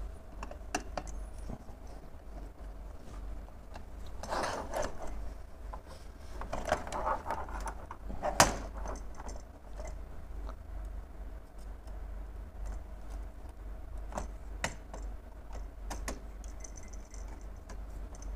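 Light clicks, taps and rustling as a wire is pushed into a plastic thermostat screw terminal block and the base is handled, with one sharper click about eight seconds in. A steady low hum runs underneath.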